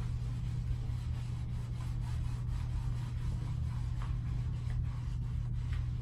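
Tanning mitt rubbing fake tan over bare leg skin in soft, repeated strokes, over a steady low hum.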